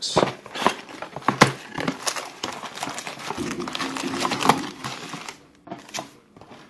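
Foil-wrapped trading-card packs crinkling and rustling as they are pulled out of a cardboard hobby box and stacked, with many sharp little clicks and taps.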